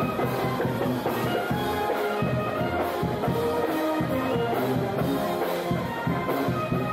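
Music with drums and brass instruments playing to a steady beat.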